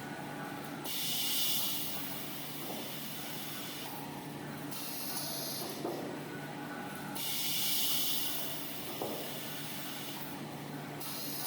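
Paper roll band saw cutting machine running: a steady motor hum with a hiss of about three seconds that comes twice, and a few light clicks.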